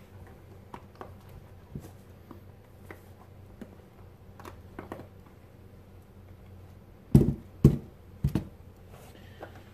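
Cold process soap bars being pressed out of a silicone bar mold: scattered soft clicks and rustles, then three heavy thuds about seven seconds in as bars are set down on the table.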